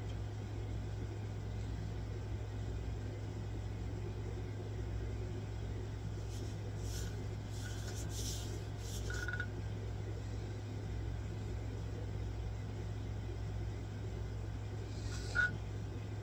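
Steady low hum of room tone, with a few brief soft noises a little past the middle and one short sharp click near the end.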